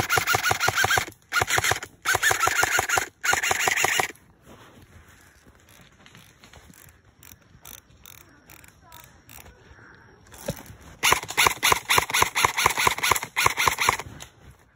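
Airsoft gun firing in bursts of rapid automatic fire: four short bursts in the first four seconds, then a longer string of fire about ten seconds in.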